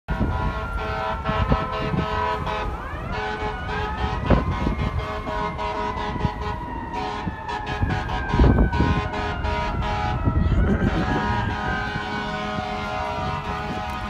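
Emergency vehicle siren rising in pitch, falling slowly over several seconds, and rising again, with steady blaring horn tones over street traffic.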